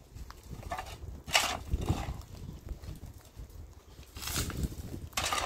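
A shovel scraping into loose stony soil and flinging the dirt and pebbles, with stones clattering. There is one short stroke about a second in and a longer one near the end.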